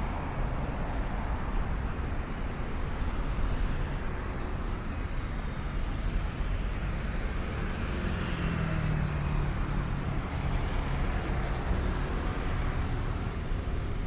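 Street traffic: steady road noise of passing cars, with one vehicle's engine hum coming up a little about eight seconds in.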